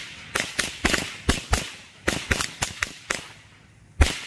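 A pack of Cherry Bomb firecrackers going off: about a dozen sharp bangs at uneven intervals over three seconds, then a pause and one last, loudest bang about four seconds in.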